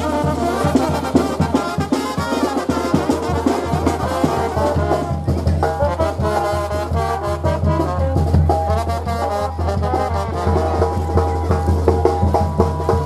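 Mexican street brass band (banda) playing: trumpets and trombones carry the melody over a low bass line and marching snare and bass drums.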